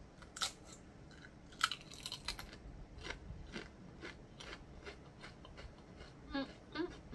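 A person biting into a large tomato-flavoured chip and chewing it. A loud cluster of crisp cracks comes about a second and a half in, followed by steady crunches about twice a second.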